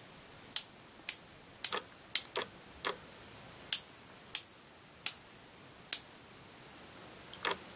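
Wright Tool 3480 open-head 3/8-inch drive ratchet turned slowly by hand, its 30-tooth mechanism giving single sharp clicks, a dozen or so, irregularly spaced about half a second to a second apart.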